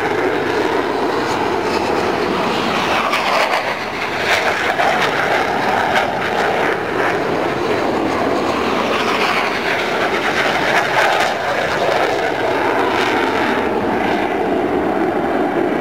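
Jet roar of a Northrop F-5 Freedom Fighter's twin General Electric J85 turbojets in a display flypast. A steady, loud rushing roar that swells and wavers slowly as the jet passes and climbs away.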